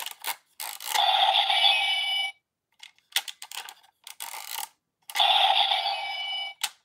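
Ryusoul Changer toy morpher playing two bursts of electronic sound effects, one about a second in and one near the end, with plastic clicks from the toy being worked between them.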